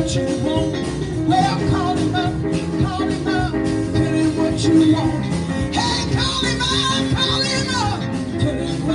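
Live gospel band playing: drum kit, keyboard, electric guitar and acoustic guitar, with a woman singing lead into a microphone.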